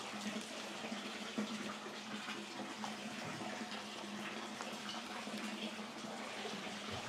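Hot spring water running and splashing steadily into a soaking pool.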